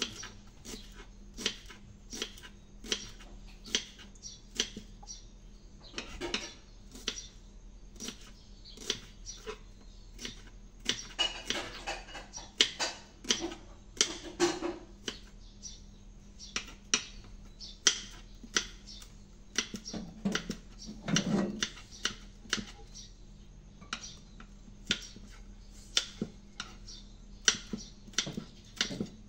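Metal utensil clinking against a pan or plate in repeated sharp strokes, roughly one to two a second, with a busier clatter midway.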